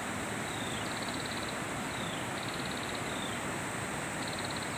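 Steady rushing noise of open water and wind by a river. Over it a small animal repeats a high call about three times: a short falling chirp, then a quick buzzy trill.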